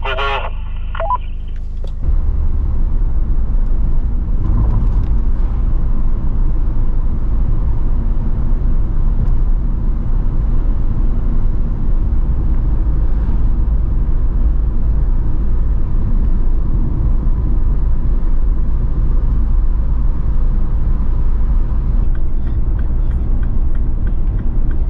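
MINI car towing a small trailer, driving at road speed: a steady, loud, low rumble of road and wind noise that starts abruptly about two seconds in, after a brief beeping tone.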